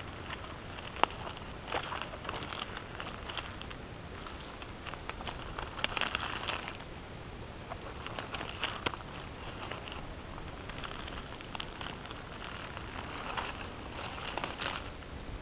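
Light rustling and crinkling, with scattered sharp clicks and snaps. The sharpest come about a second in and near nine seconds, and there are busier bursts of rustle around six and fifteen seconds.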